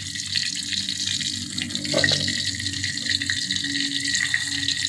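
Food frying in a pan of hot oil: a steady sizzle with fine crackles, and one louder crackle about two seconds in.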